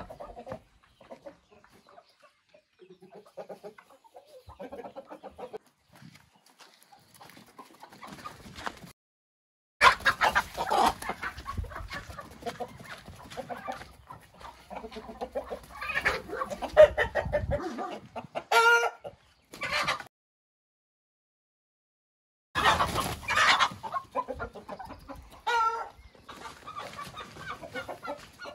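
A flock of roosters and hens clucking and calling, soft and scattered at first, then louder and busier from about ten seconds in. Short crowing calls stand out twice, in the middle and later on. The sound drops out abruptly twice.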